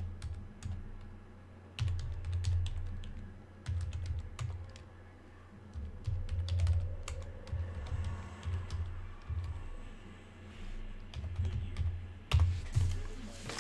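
Typing on a computer keyboard: quick, irregular keystrokes in runs with short pauses, as names are entered into a list.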